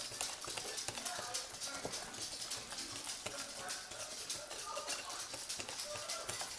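Wire whisk beating pancake batter in a glass bowl: a rapid, steady clicking of the wires against the glass.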